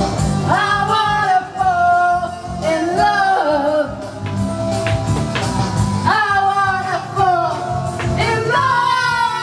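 A live rock song: electric guitar accompaniment under sung vocals, the voices coming in with long held phrases about half a second in, again about six seconds in and near the end.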